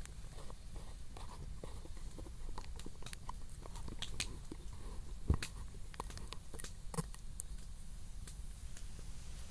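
Wood campfire crackling: irregular small pops and snaps of burning wood, with a sharper snap about five seconds in and another about two seconds later.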